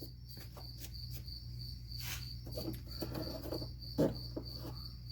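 Crickets chirping in steady, even pulses, with scattered clicks and a sharper knock about four seconds in from wiring and plastic harness clips being handled.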